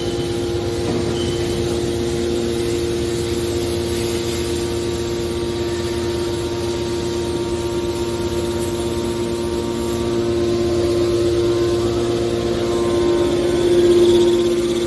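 Hydraulic scrap metal baler running with a steady hum, swelling a little louder near the end.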